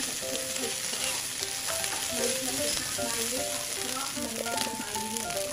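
Fried rice with egg and sausage sizzling in a hot wok as it is stirred and turned with a metal spatula and a wooden spatula, a steady dense sizzle.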